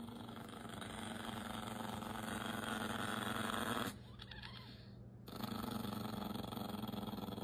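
A dog growling low and continuously, breaking off briefly about four seconds in before starting again.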